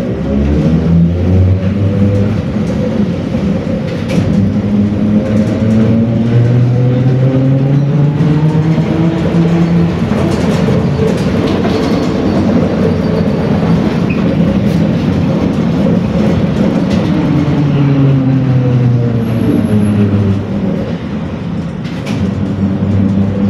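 Electric traction drive of a ZiU-682KR trolleybus whining over steady road rumble, heard from inside the cabin. The whine rises in pitch as it gathers speed for about the first ten seconds, falls as it slows about two-thirds of the way through, and starts rising again near the end.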